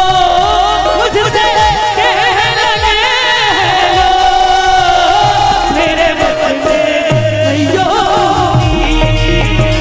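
Live amplified Maithili folk song: a woman sings with wavering ornamented lines into a microphone, over keyboard and drum accompaniment with a steady low beat.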